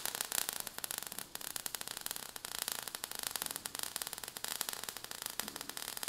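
Steady crackling hiss, dense with tiny clicks: a sparks sound effect.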